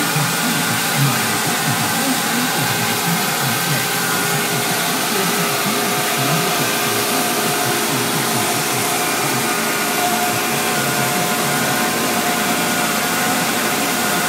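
Fendt 820 Vario tractor working a field: a steady, even rushing noise with a few faint steady tones through it.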